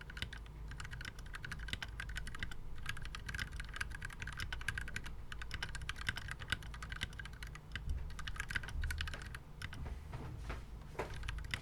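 Typing on a KBDfans Tofu mechanical keyboard fitted with Gateron Yellow linear switches: a fast, continuous run of keystrokes that thins out to a few scattered key presses over the last two seconds.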